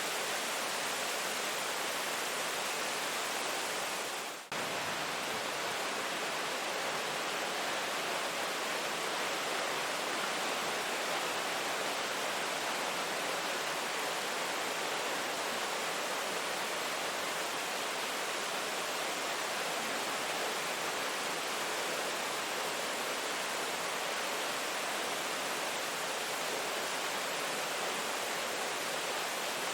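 Rain falling steadily, an even hiss that dips briefly about four and a half seconds in.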